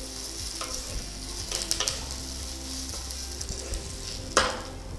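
Coriander seeds, toor dal, dried red chillies, garlic and curry leaves sizzling steadily as they roast in a wok, stirred with a wooden spatula, with a few light scrapes and clicks and one sharper scrape near the end. The spices are roasted till reddish for a rasam powder.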